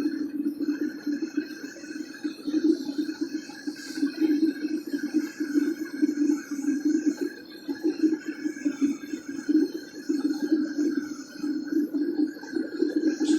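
Homemade aluminum-melting furnace running steadily, with a low fluttering rush from its burner or air blast while aluminum melts inside.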